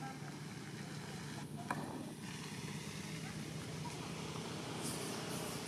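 Steady outdoor background noise with a low hum, one sharp click about a second and a half in, and a few faint high chirps near the end.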